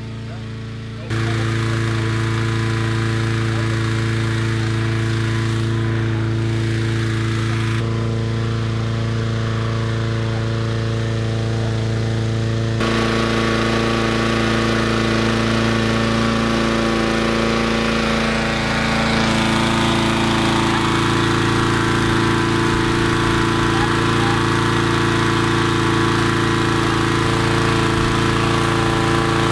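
Small engine of a hot-air balloon inflator fan running steadily at speed, blowing cold air into the laid-out balloon envelope. It comes in louder about a second in.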